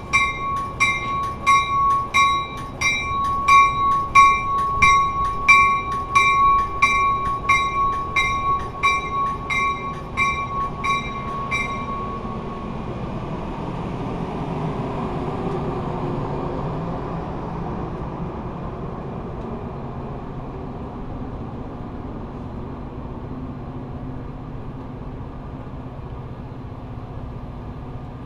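Metra commuter train of bilevel cars rolling past the platform with a steady low rumble of wheels on rail. A bell rings over it at about three strikes every two seconds and stops about twelve seconds in.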